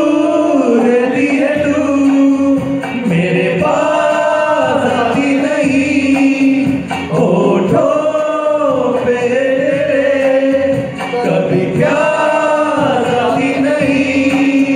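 Group of men singing a song together into hand microphones, in long held phrases with short breaks about every four seconds.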